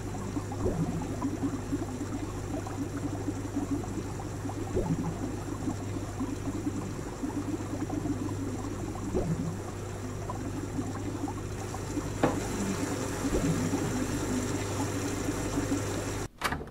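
Aquarium water bubbling and gurgling over a steady low hum from the tank's pump, cutting off suddenly near the end.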